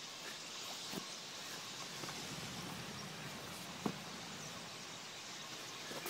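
A huge flock of small black birds calling all at once, a steady, dense chatter with no single call standing out, broken by a sharp click about four seconds in.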